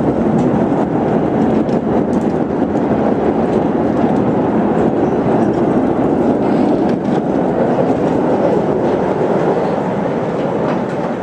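Steady running noise of a miniature passenger train rolling along its narrow-gauge track, heard from aboard one of its cars.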